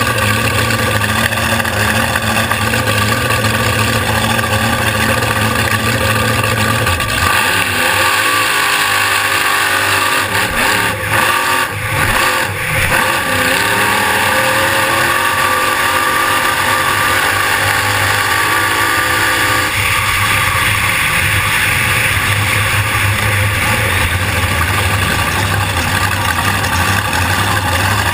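Supercharged alcohol-burning 540ci engine of a flatbottom drag boat running at low speed, heard from on board. The engine's note is steady and loud, wavering in pitch with a few brief dips partway through.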